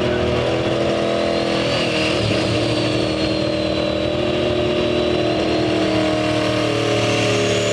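Ford Super Duty pickup's diesel engine held at high revs against the pulling sled, with a high whistle over it that climbs near the end.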